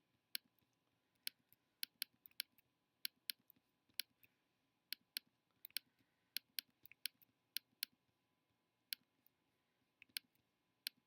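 Computer mouse clicking, sharp single clicks at an irregular pace of about two or three a second with short pauses, from spot-retouching specks in a photo-editing program.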